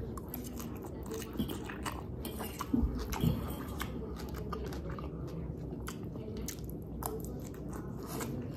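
A person chewing a mouthful of soft noodles close to the microphone, with small wet mouth clicks throughout and a couple of louder knocks about three seconds in.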